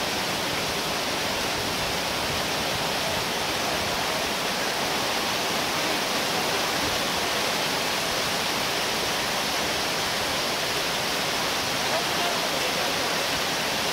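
Heavy thunderstorm downpour: a steady, even rush of rain.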